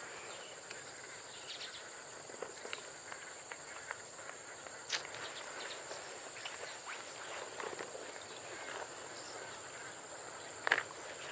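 Steady high insect drone, typical of crickets, over faint outdoor ambience, with scattered light clicks of duck eggs knocking together as they are picked up and set into a plastic bowl; a sharper click comes about five seconds in and another near the end.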